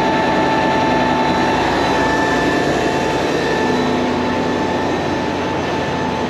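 Tanker trailer's product pump running steadily while pumping liquid chicken fat off into another tanker: a constant mechanical drone with a steady whine on top.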